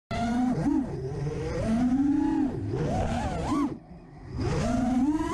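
FPV quadcopter's brushless motors whining, the pitch rising and falling with the throttle; the throttle is chopped a little under four seconds in and the motors spool back up about half a second later.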